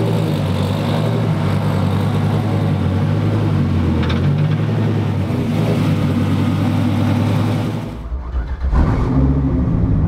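Twin-turbo V10 engine of a Dodge Viper drift car idling steadily. Near the end the sound dips briefly, then picks up again with a deeper idle.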